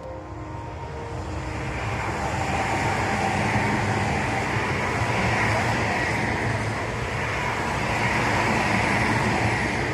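Tobu Tojo Line train passing: a steady rumble and rail noise that swells in over the first two seconds and stays loud, rising and falling gently as the cars go by.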